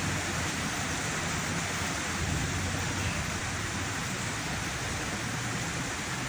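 Steady rain falling, an even hiss with a low hum underneath.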